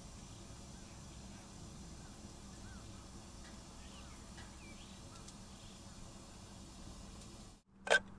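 Faint outdoor ambience with scattered short, distant bird chirps. Near the end comes a single sharp metallic clack as a Feuerhand 276 hurricane lantern is handled.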